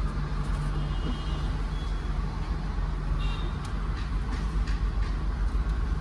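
Car engine idling, heard from inside the cabin with the driver's window open, over a steady low rumble of traffic. A couple of faint high beeps come about a second in and again after three seconds.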